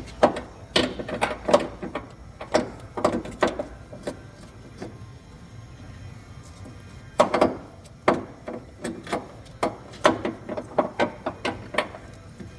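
Irregular metal clinks and knocks as an engine mount and hand tools are handled and fitted under a car. They come in two spells with a quieter pause of a few seconds between them.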